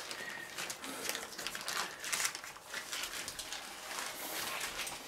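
Baking paper crinkling and rustling in irregular bursts as gloved hands roll it tightly around a bacon-wrapped meat roll.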